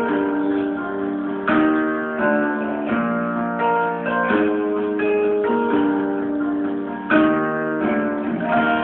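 Instrumental music: plucked string chords, moving to a new chord every second or so.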